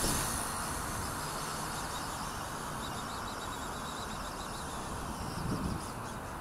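WLtoys V950 RC helicopter's electric motor and rotors running steadily in flight at some distance, under wind noise on the microphone, with faint insect chirping.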